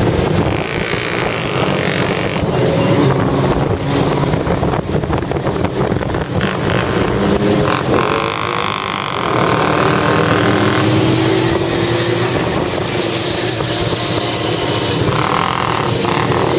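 Motorcycles riding in a group, heard from on one of the bikes: engines running with wind buffeting the microphone, and an engine note rising partway through.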